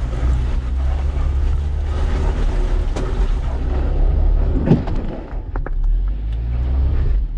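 An off-road vehicle's engine working under load as it crawls forward over slippery rock, with a few sharp knocks and crunches about two thirds of the way through.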